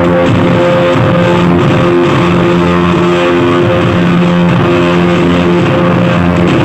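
Loud music with a melody of held notes, played through a miniature sound system.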